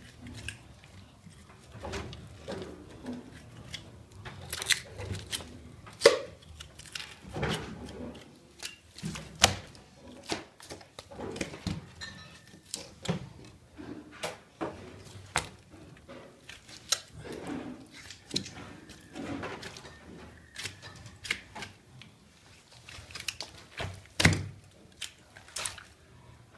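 Butchering a pork leg with a knife on a wooden table: irregular knocks and thuds of meat, bone and knife against the boards, with the loudest knock about six seconds in and another near the end.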